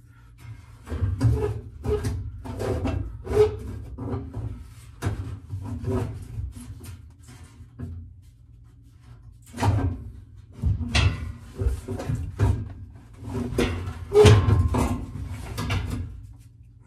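Sheet-metal package tray being worked into a 1969 Mustang fastback's rear deck, knocking and scraping against the roll bar and body in a run of uneven clunks and rubs. There is a short pause about halfway, the loudest knocks come near the end, and a steady low hum runs underneath.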